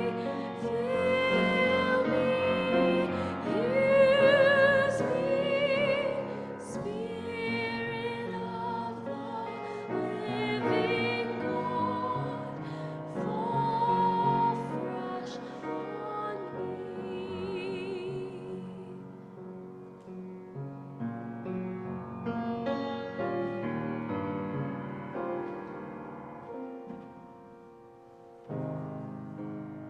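Worship song sung with vibrato over piano accompaniment, growing quieter toward a soft close. Piano starts up again just before the end.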